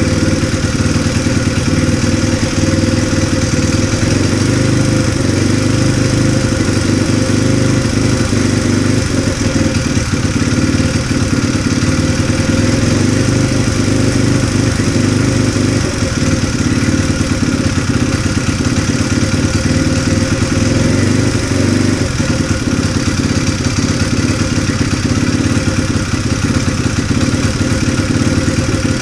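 Honda Jazz 50cc single-cylinder four-stroke engine running steadily at idle with a light mechanical clatter, its valve tappets freshly readjusted to chase a suspected abnormal noise.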